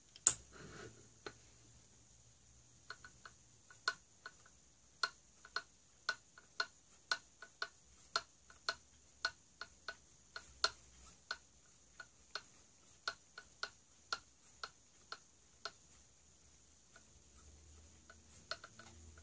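Screw plate cutting a thread on a tiny screw blank held in a chuck: one louder click near the start, then a regular run of short, sharp clicks, about two a second, as the plate is worked onto the blank, stopping a few seconds before the end.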